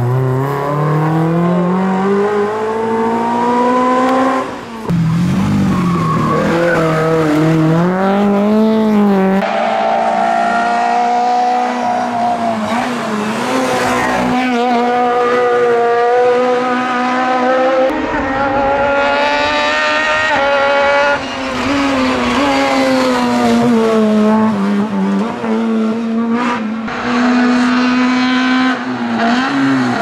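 Fiat 127 Sport race cars' small four-cylinder engines revving hard up the hill, as several cars pass one after another. The pitch climbs steeply, drops at each gear change or lift for a corner, then climbs again, over and over.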